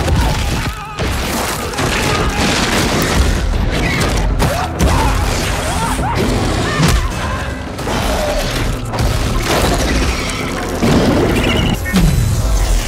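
Action-film sound mix: dramatic score under repeated heavy booms and crashing impacts, with some gliding cries or whooshes.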